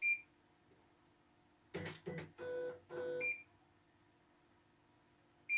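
CNY E900 embroidery machine's control panel beeping three times as its buttons are pressed: at the start, about three seconds in, and at the end. Between the first two beeps the machine's mechanism gives a couple of clicks and a brief motor whir.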